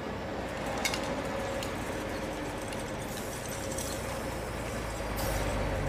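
Steady low rumble of vehicle engines running in a loading yard, with a faint steady tone and a few light clicks about a second in; it gets a little louder near the end.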